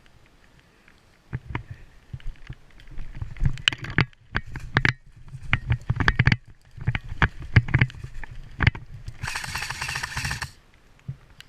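Footsteps and gear handling while moving through forest undergrowth: irregular crunches, snaps and knocks with low thuds. Near the end comes a dense, rapid burst lasting about a second.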